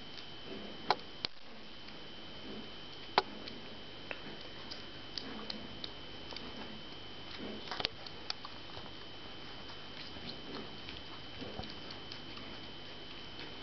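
Month-old puppies moving about and playing: a scattering of light clicks and soft patter, with a few sharper clicks, over a steady faint hiss and a thin high tone.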